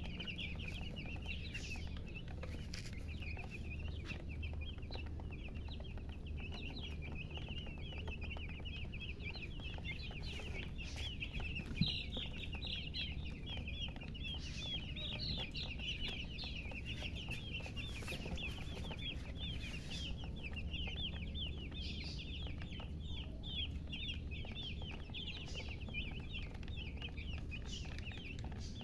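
A brood of baby chicks peeping continuously, many short high peeps overlapping, over a steady low hum. A single soft thump about twelve seconds in.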